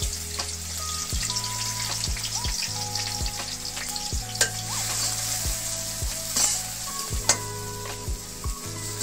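Sliced onions sizzling as they fry in hot oil in a steel karai, with a few sharp clicks, the loudest about seven seconds in.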